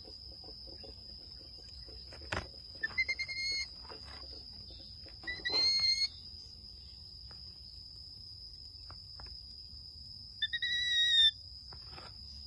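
Baby monkey giving three short, clear whistle-like coo calls, each under a second: one about three seconds in, one about two seconds later, and a last one near the end. A steady high insect drone runs underneath.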